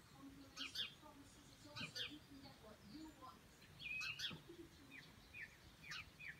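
Faint birdsong: short, sharp chirps at irregular intervals, with one longer held note about four seconds in and a quicker run of chirps near the end.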